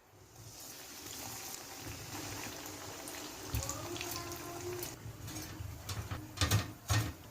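Homemade chicken nuggets sizzling as they fry in hot oil, a steady hiss, with a few sharp knocks near the end.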